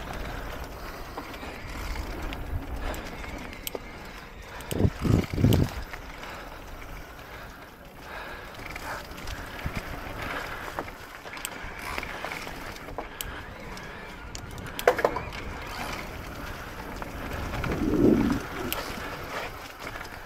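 Electric mountain bike rolling fast downhill on a dirt and leaf-litter trail: continuous tyre noise with small knocks and clicks from the bike. A few heavy thumps come about five seconds in, and a louder rush near eighteen seconds.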